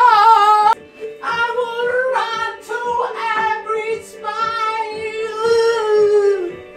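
A song: a singing voice holds long, wavering notes over music, the last note sagging and fading near the end.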